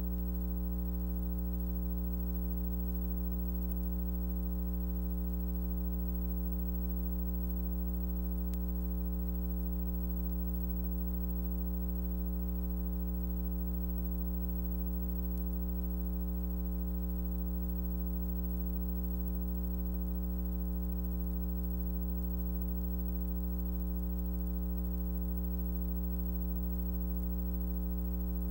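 Steady low electrical mains hum with its overtones, unchanging and with no other sound over it, as from ground-loop hum in the recording or film transfer.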